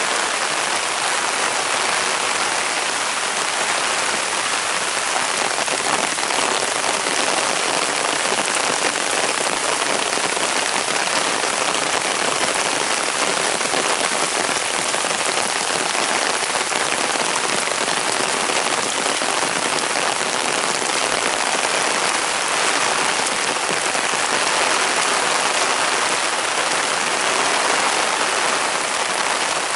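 Heavy downpour: a steady, even rush of rain and running water with no breaks or separate sounds.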